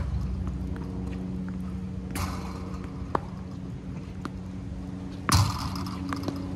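Slinger tennis ball machine firing balls, two sharp pops about three seconds apart, each with a short noisy tail. Fainter knocks of ball hits fall between them, over a steady low hum.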